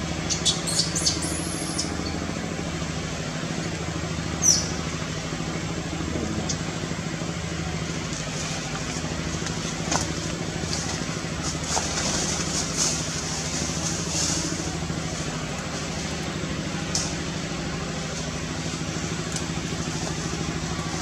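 An engine running steadily at one constant speed, a low even hum. A few short high chirps come in the first seconds.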